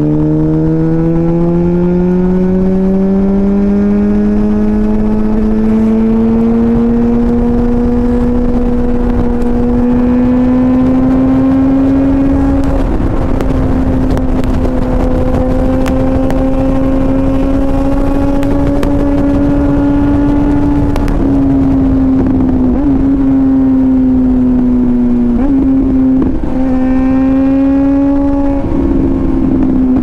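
Suzuki GSX-R1000's inline-four engine under way, its note rising steadily over the first few seconds as the bike accelerates, then held high and fairly steady while cruising. It has a few brief wavers in pitch in the last third.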